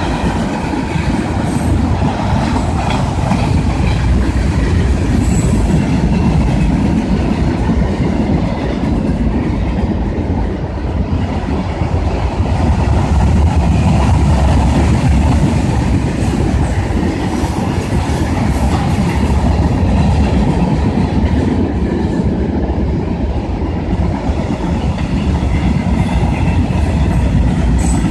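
CSX freight train cars rolling past, a loud, steady rumble that holds throughout.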